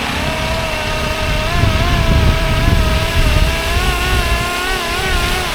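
Fly-Wing MH-60R SeaHawk RC helicopter's electric motor and rotors whining steadily, the pitch wavering slightly as the motor speed shifts, over a low rumble.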